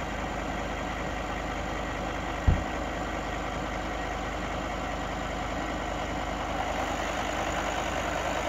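VW Phaeton's warm 5.0-litre V10 TDI diesel idling steadily. A single dull thump comes about two and a half seconds in.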